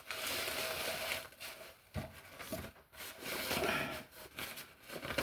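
Rustling and rubbing of a nylon stuff bag as a camping stove is pulled out of it, with a single light knock about two seconds in.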